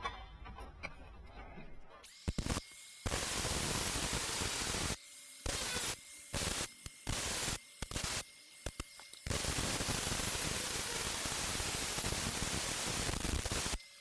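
A loud, steady hiss that starts and stops in bursts: several short ones of under a second, one of about two seconds, and a long one of about four and a half seconds near the end.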